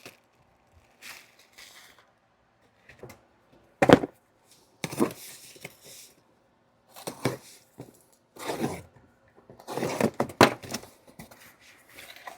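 Parcel packaging being unpacked by hand: irregular rustles, scrapes and knocks, with a sharp knock about four seconds in and a busier stretch of handling near the end.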